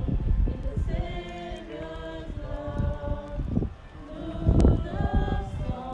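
A small group of people singing together without instruments, voices holding long notes.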